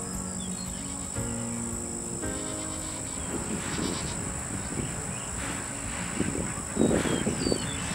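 Soft background music for the first couple of seconds, then open-air pasture sound with a steady high insect chirring. Irregular handling knocks and rustles follow, loudest about seven seconds in.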